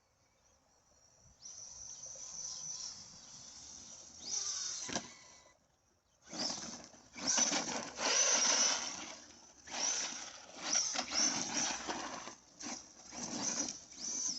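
Arrma Big Rock brushless RC monster truck running on a 4S LiPo, driven in repeated throttle bursts of one to three seconds with short breaks between them.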